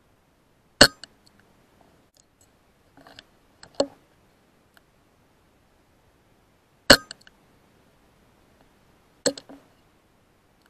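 Two sharp air rifle shots, the first about a second in and the second some six seconds later. Each is followed a few seconds later by quieter clicks and clacks.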